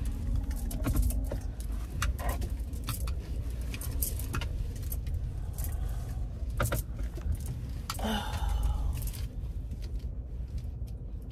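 Keys jangling and clinking in many small, irregular clicks over the steady low rumble of a car, with a slightly louder rustle about eight seconds in.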